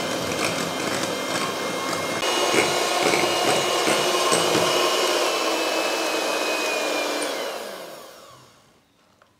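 Electric hand mixer whirring as its beaters whip cream in a glass bowl. It gets a little louder about two seconds in, then winds down and stops near the end.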